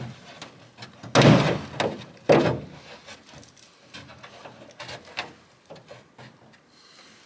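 Rubber washer hose being worked off a plastic windshield washer jet: two louder scraping, rubbing stretches about one and two seconds in, then a few light clicks and taps of plastic.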